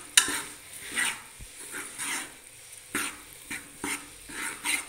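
A steel ladle scraping and knocking against an aluminium pot while it stirs wheat flour into hot ghee, with short sharp scrapes about once a second.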